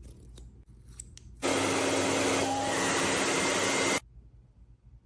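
A loud, steady rushing noise with a low hum underneath, which switches on suddenly about a second and a half in and cuts off abruptly about two and a half seconds later. A few faint clicks come before it.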